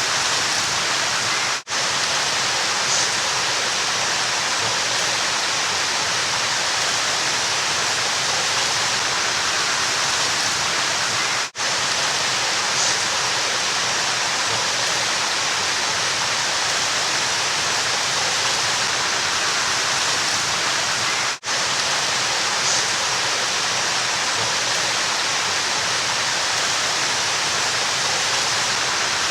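River water rushing steadily, an even wash of noise. It cuts out briefly three times, about ten seconds apart.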